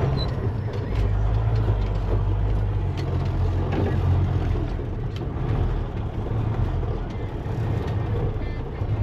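Ten-wheeler truck's engine running steadily as the truck drives across a field, with a few light knocks and rattles.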